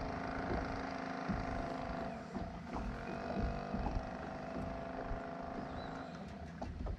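Boat motor running steadily at low speed, then cut off shortly before the end.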